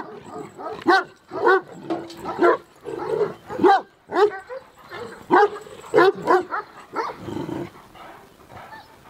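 Kangal dogs barking in a run of short, high barks, about two a second, which stop about seven seconds in.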